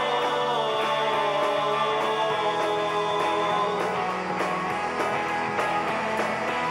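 Music with guitar.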